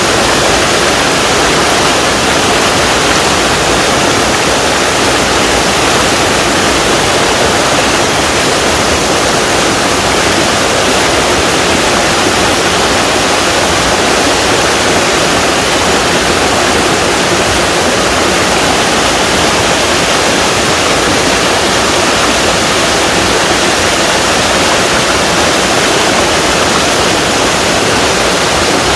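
A small waterfall in a mountain stream: water pouring and rushing in a steady, unbroken hiss.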